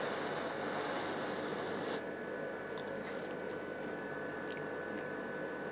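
Someone blowing on a hot spoonful of chutney to cool it; the breathy hiss stops after about two seconds. Then come quiet tasting and chewing mouth sounds with a few small clicks.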